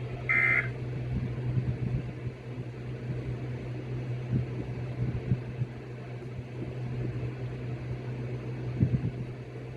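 A brief burst of two alternating tones, one just under and one just over 1.5–2 kHz, sounds just after the start. It is typical of an Emergency Alert System data burst sent by a weather radio once its spoken warning ends. After it comes a steady low electrical hum with a few soft knocks.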